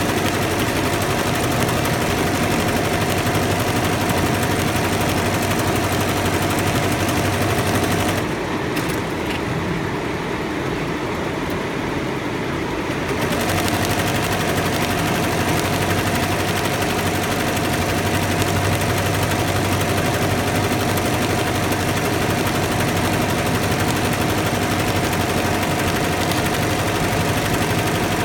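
Multi-needle embroidery machine stitching at speed: a fast, even needle clatter with a steady whine. About eight seconds in, the whine drops out and the running goes quieter for about five seconds before the full stitching sound resumes.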